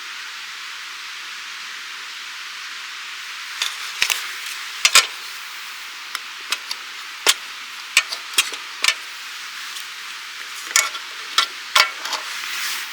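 Steady rushing of a mountain stream, with scattered sharp clicks and knocks of camp gear being handled.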